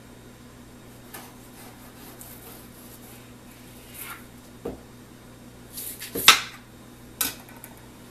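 Kitchen knife cutting a stick of butter on a cutting board: a few soft knocks of the blade, then a sharper clatter about six seconds in as the knife is set down, with another knock about a second later. A steady low hum runs underneath.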